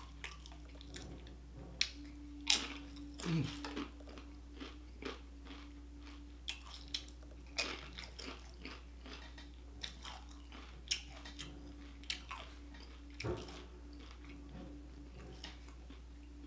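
Close-miked chewing of a queso-dipped tortilla chip: irregular crisp crunches and wet mouth clicks spaced a second or so apart, over a faint steady hum.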